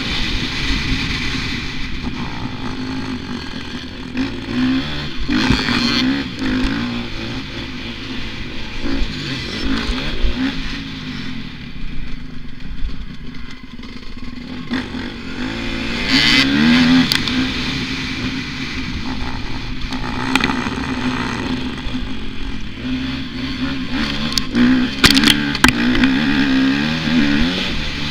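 Dirt bike engine revving hard and easing off again and again as it is ridden around a motocross track, heard from a helmet camera, with noisy rushes and clatter from the ride over the rough ground.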